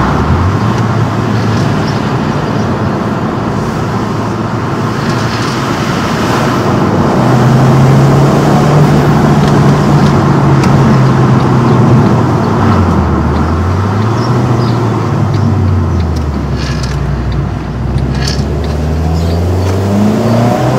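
Abarth Punto Evo's 1.4-litre turbocharged MultiAir four-cylinder engine heard from inside the cabin on the move, its revs climbing and dropping several times as it accelerates and eases off, over a haze of road and tyre noise.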